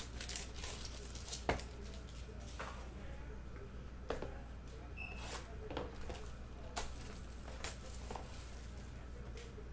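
Hands handling small cardboard card boxes and a plastic wrapper: scattered taps, clicks and rustles, the sharpest about one and a half seconds in, over a steady low hum.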